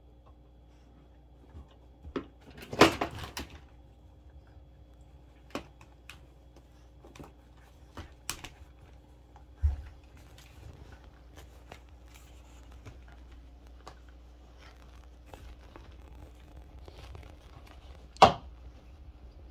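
Scattered rustles, scratches and light knocks of a small curly-coated dog moving about and pawing on a quilted bed blanket, with a louder burst of rustling about three seconds in and a sharp knock near the end.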